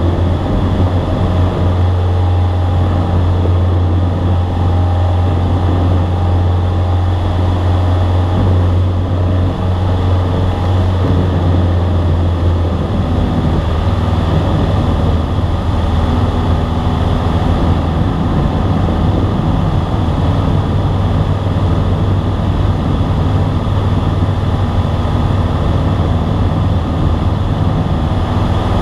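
Single-engine light airplane's piston engine and propeller droning steadily, heard from inside the cockpit in cruise flight, with rushing air noise over it.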